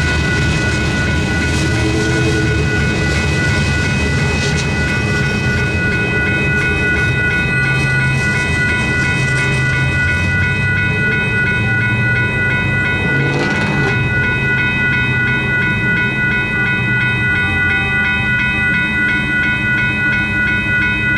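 Railroad grade-crossing signal bell ringing steadily in rapid repeated strikes over the low rumble of a freight train's last cars rolling through and clearing the crossing.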